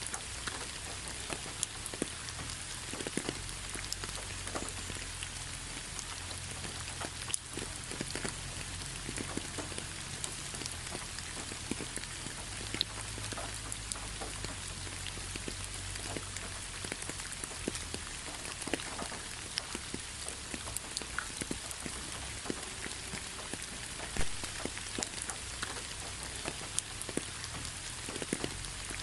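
Steady rain falling, a continuous hiss with many individual drops ticking, a few of them louder than the rest.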